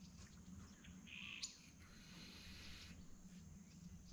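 Near silence: faint outdoor ambience with a few faint bird chirps and a single click about a second and a half in.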